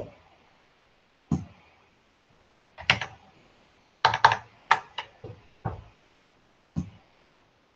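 Irregular keystrokes on a computer keyboard, about a dozen sharp taps, bunched together in the middle.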